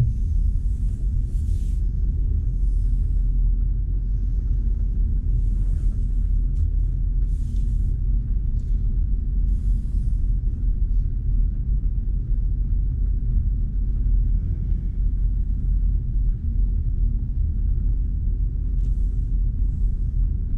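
Steady low rumble of a BMW i4 M50 electric car driving, mostly tyre and road noise with no engine note, and a few faint short hisses now and then.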